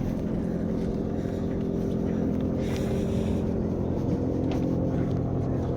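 Fishing charter boat's engine running steadily at idle, a low even hum with no change in pitch.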